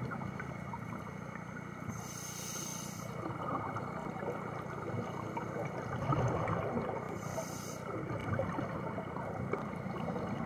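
Scuba diver breathing through a regulator underwater: a short hiss of inhalation twice, about two seconds and seven seconds in, with exhaled bubbles rumbling between breaths over a steady underwater crackle.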